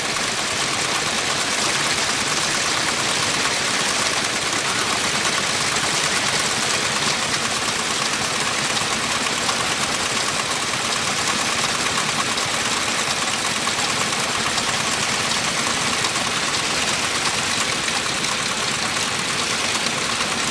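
Kubota ND15 horizontal water-cooled single-cylinder diesel engine running steadily.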